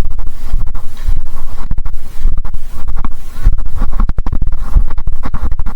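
Loud, irregular scratching and rubbing, with many short crackles and low thumps.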